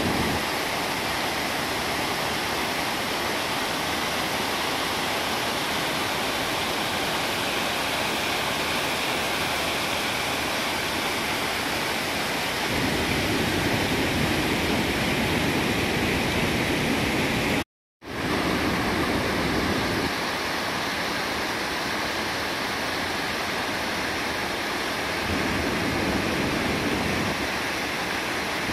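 Floodwater pouring in sheets over a stepped concrete dam spillway and splashing onto broken slabs and rocks below: a steady rushing of water. The sound cuts out for an instant about two-thirds of the way through.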